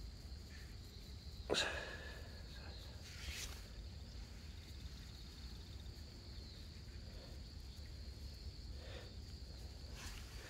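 Quiet garden-plot ambience: a faint steady high insect trill, with occasional soft scuffs and rustles of hands and feet on dry soil during hand sowing of spinach seed. The clearest scuff comes about a second and a half in.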